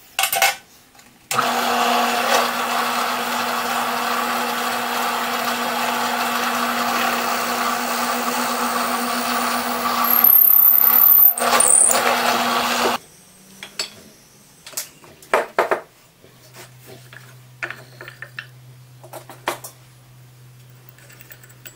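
An electric power tool, used for sanding a tight-fitting dowel, gives a short blip and then runs at a steady pitch for about eleven seconds. It is a little louder near the end of the run and then stops abruptly. Light knocks and handling noises follow, with a faint low hum late on.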